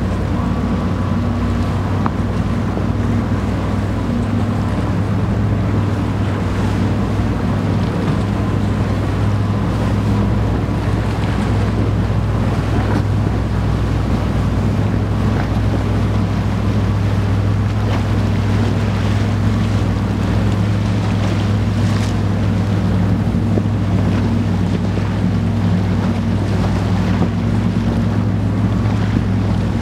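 Container ship's diesel engine droning steadily as it passes close, a low even hum, with water washing along the hull and wind buffeting the microphone.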